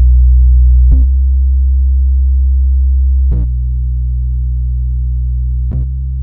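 Bass test tones: steady, very low sine-like tones held for a couple of seconds each, switching three times with a short click at each change and getting a little quieter with each step.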